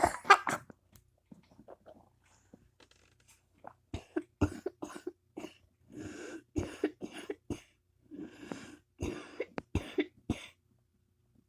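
A bout of coughing: a dozen or so short coughs in quick groups, starting about four seconds in and stopping just after ten seconds.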